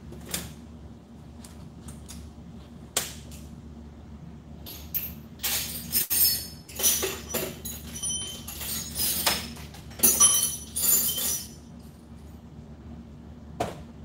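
Metal tools and small parts clattering and clinking as they are handled, with short metallic rings; a busy stretch in the middle, with single clicks before and after.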